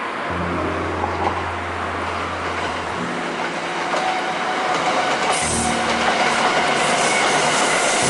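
A train running past on the track: a steady rumble of wheels on rail that grows a little louder.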